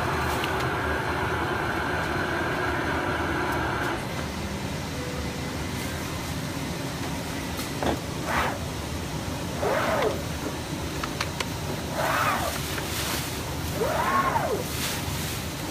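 IECHO BK3 digital cutting table at work: a steady machine hum cuts off about four seconds in, then its drive motors whine in repeated rising-and-falling sweeps, about one every two seconds, as the cutting head speeds up and slows down on each move, over steady background noise.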